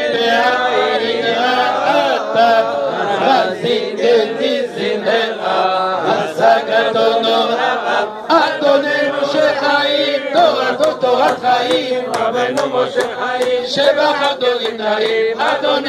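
Group of men singing a Jewish religious song together, a repetitive chant-like melody, with sharp claps or clicks joining in about halfway through.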